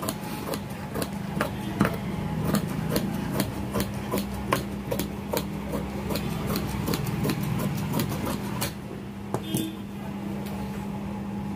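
Large tailoring shears cutting through cotton dress fabric: a run of crisp blade snips, about three a second, thinning out near the end, over a steady low hum.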